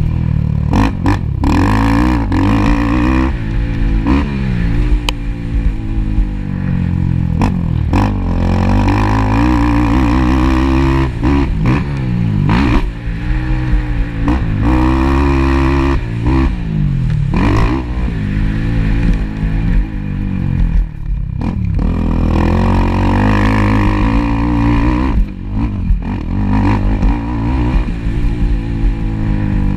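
Racing ATV (quad) engine at full throttle, its pitch repeatedly climbing and dropping as it revs up and backs off through the laps, with occasional knocks.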